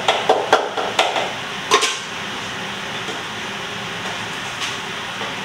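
A few sharp knocks and clatters of kitchen containers and utensils being handled in the first two seconds, then a steady whirring hum of a running kitchen appliance or fan.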